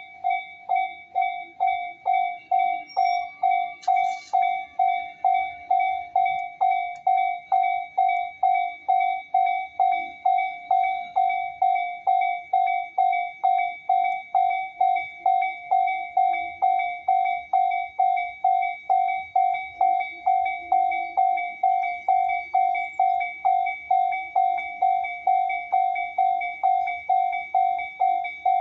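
Japanese railway level-crossing alarm ringing over and over at an even pace of about two strikes a second, each strike the same bell-like tone.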